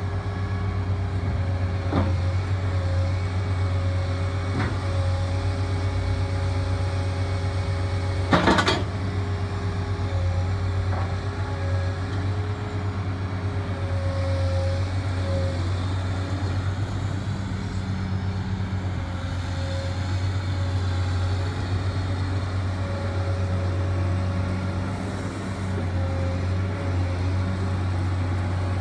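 Cat M316D wheeled excavator's diesel engine running steadily under load, with a hydraulic whine that comes and goes as the boom and bucket move and the upper structure swings. A loud sharp clank about eight seconds in, with lighter knocks before it.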